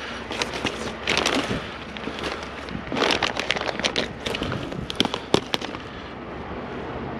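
Items in a curbside junk pile being handled and rummaged through: crackling, crinkling plastic and sharp clicks and knocks in uneven bursts, heaviest about a second in and again around three to four seconds.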